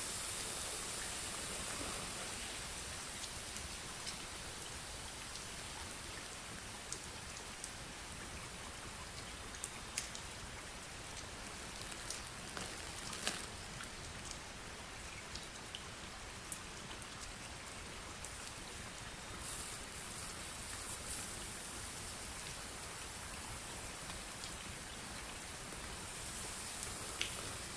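Water dripping and trickling onto crumpled plastic cling film to imitate rain: a steady rain-like hiss with scattered sharper ticks of single drops.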